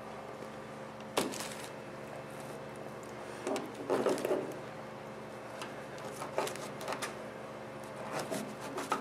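Scattered light clicks, knocks and rustles of a plastic fork and plate being handled on a table, over a steady low hum. The loudest click comes about a second in, with a short cluster of knocks and rustling in the middle and a few more near the end.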